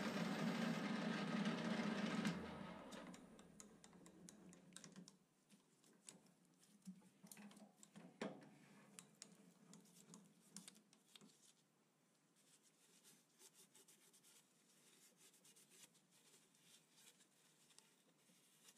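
Small metal lathe running with a steady hum, switched off about two seconds in and spinning down to a stop over the next few seconds. After that only faint scratching and light clicks as a cloth wipes the freshly cut threads on the part in the chuck.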